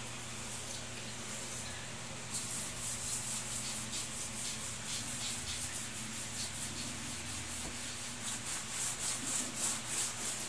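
Steel wool pad scrubbing a soapy plank floor by hand, starting about two seconds in as quick, rhythmic back-and-forth scratchy strokes.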